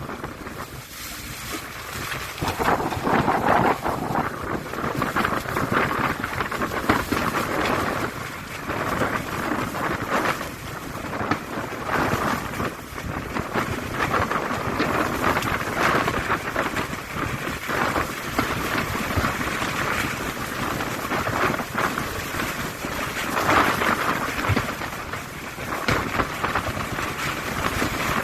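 Fireworks display going off: a continuous barrage of booms and dense crackling bursts, swelling and easing in waves.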